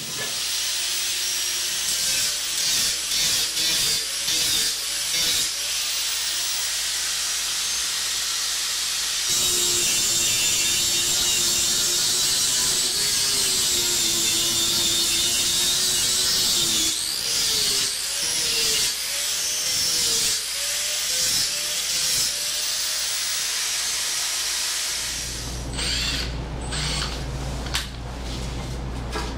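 Handheld power tool working on fibreglass and wood in a boat hull, running in stretches with its motor pitch dipping and rising under load over a steady high hiss. It stops and starts in short bursts later on, and a low hum comes in near the end.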